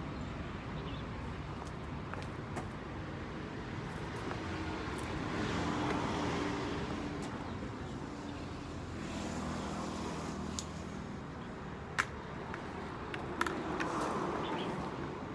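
Road vehicle on the move: a steady low rumble and road noise, with engine tones that rise and fall in the middle and a few sharp clicks near the end.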